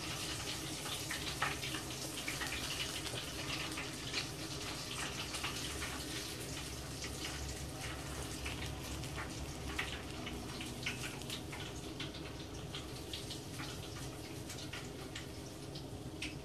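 Breaded coconut shrimp deep-frying in a pot of hot oil: a steady sizzle dotted with many small crackles and pops.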